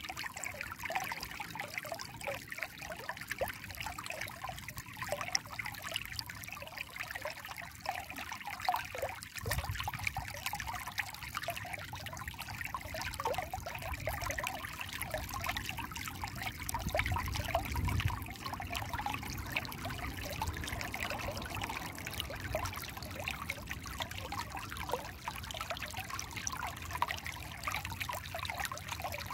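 Shallow stream trickling and gurgling over rounded stones, a steady babble made of many small splashes. A low rumble joins about a third of the way through and is strongest a little past the middle.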